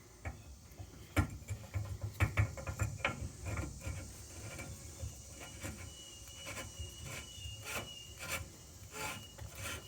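Hydrant parts being handled and fitted together by hand: irregular clicks, taps and rubbing as the bottom piece is put back onto the hydrant's plunger assembly.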